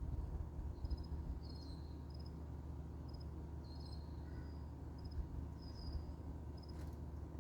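Faint high-pitched chirping, a few quick pulses at a time, recurring every second or so over a steady low rumble.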